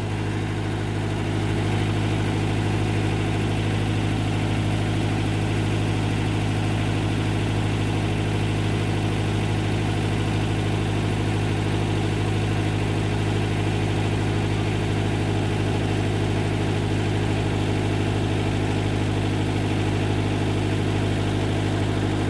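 Mitsubishi mini excavator's diesel engine idling steadily, a constant low hum with no change in speed.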